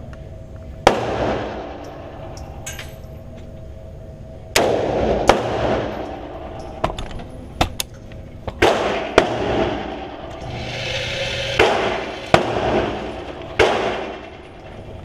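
Hi-Point C9 9mm pistol firing a string of single shots at irregular intervals, about eight to ten, each with a ringing tail.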